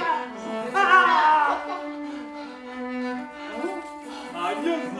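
Music with bowed strings (cello and violin) playing long held notes, with a louder gliding line about a second in.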